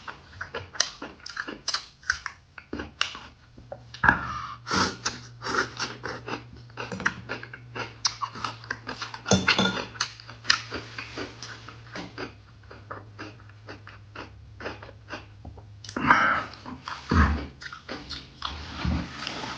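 Close-up mouth sounds of someone eating pan-fried pork intestine with spicy napa cabbage: wet chewing, smacking and biting clicks, several a second, with louder bites every few seconds. A faint steady low hum sits underneath.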